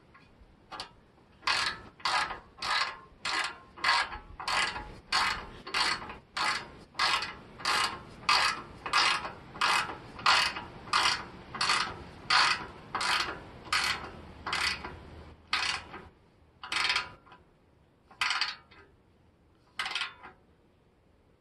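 Socket ratchet clicking in quick repeated back-and-forth strokes, about two a second, as it turns a bolt on a motorcycle exhaust mounting; near the end the strokes slow to a few spaced ones.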